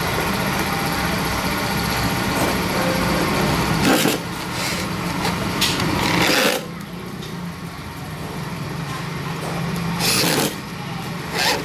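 Handheld electric drill running and boring holes down through a chair's seat plate, with short louder bursts as the bit cuts.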